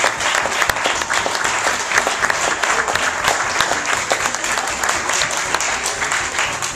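Audience applauding: many people clapping steadily in a room.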